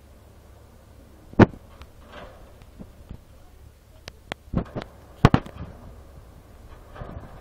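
A few sharp knocks: a loud one about a second and a half in, a cluster of smaller clicks and knocks around four to five seconds in, and another loud knock just past five seconds, over a low steady rumble.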